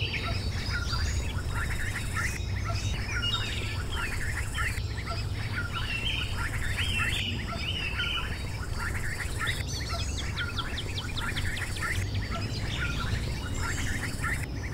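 Newly hatched mallard ducklings peeping, many short, high, falling calls overlapping without pause, over a steady low hum.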